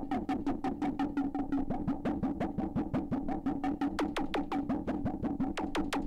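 After Later Audio Beehive, a Eurorack Plaits-clone oscillator, in its filtered-noise percussive model with the resonant filter gated: a fast, steady run of noise hits, several a second. Each hit drops quickly in pitch, over a steady resonant ringing.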